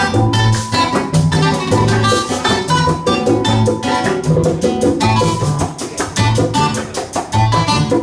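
Live Puerto Rican cuatro and acoustic guitar playing a lively Latin tune together, with congas keeping a steady beat underneath.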